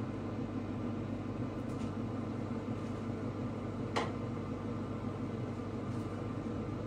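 Steady machine hum of a fan or kitchen appliance, with a single sharp click about four seconds in.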